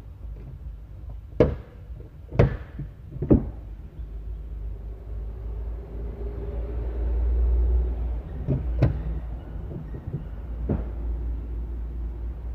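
Sharp knocks and clunks as plastic trim and tools are handled inside a car's cabin: three in the first few seconds and more later. A low rumble swells in the middle.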